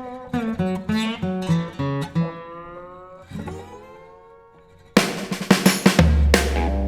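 Background music: plucked guitar notes that fade out about halfway, then a louder section with drums and bass kicks in about five seconds in.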